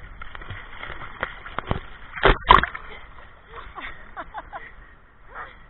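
Shallow sea water splashing and sloshing as a child slaps and scoops it with his hands, with two loud splashes close together a little past two seconds in.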